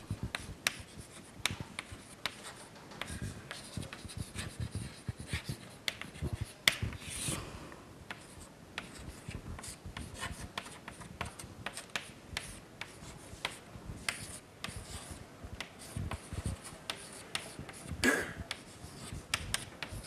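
Chalk on a blackboard as an equation is written out: an irregular scatter of sharp taps and short scratching strokes.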